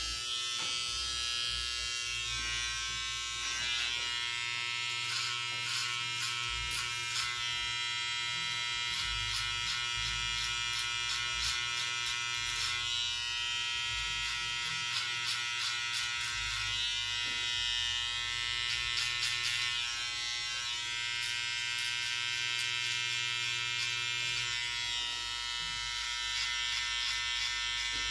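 Electric hair clipper running with a steady buzz while it cuts beard hair along the jawline, with frequent small crackles as the blades bite through the whiskers.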